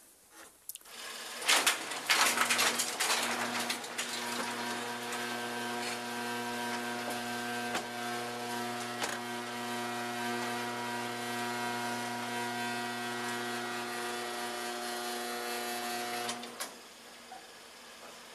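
An electric motor running with a steady whine. It starts with a clatter of knocks about a second and a half in and cuts off suddenly near the end.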